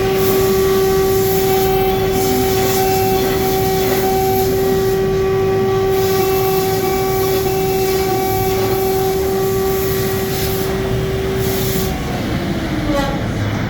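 CNC router spindle running with a steady whine over a rushing noise; about twelve seconds in the whine drops in pitch as the spindle winds down.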